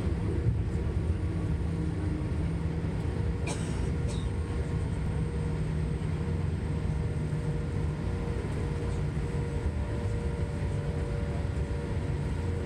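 Boeing 777 cabin noise on the takeoff roll: the engines and runway rumble make a steady low drone with a few faint held tones. Two brief clicks come about three and a half and four seconds in.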